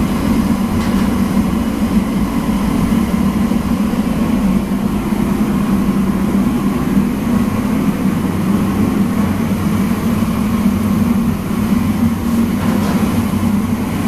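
Steady, loud mechanical drone with a low hum and an even rushing noise over it, typical of large-kitchen machinery such as exhaust fans or blower burners.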